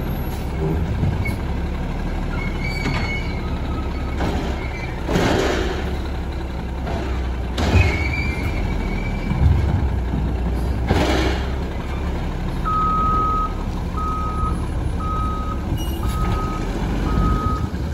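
Autocar WX garbage truck with a Labrie Automizer body, its natural-gas engine running low and steady, with three short hisses of air about 5, 8 and 11 seconds in. From about 13 seconds in its reversing alarm beeps steadily, about once a second.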